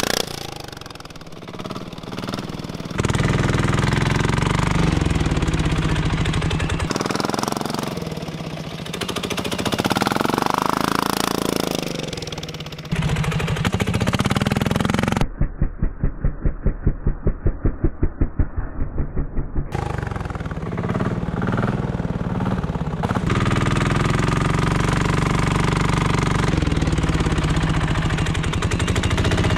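Diesel engine on a kids' mini quad running and pulling as the quad is ridden through mud, heard in several short cut clips. In one clip around the middle it runs with a slow, even beat of about four a second.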